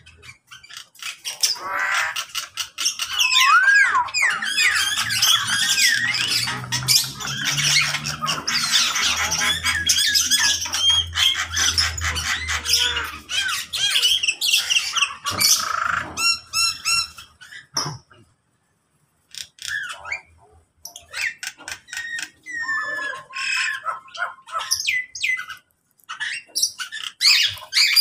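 A mixed aviary flock of parakeets, mynas and other cage birds squawking, whistling and chattering over one another. The calling is dense for the first half, with a fast trill about two-thirds of the way in, a short lull, then scattered calls.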